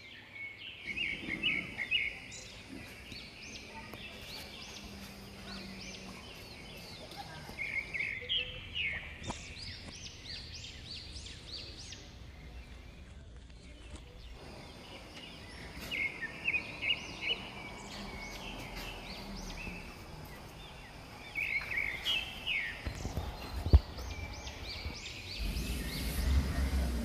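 A bird singing in short phrases of quick rising chirps, a phrase every six to eight seconds. A single sharp click comes near the end, followed by a low rumble.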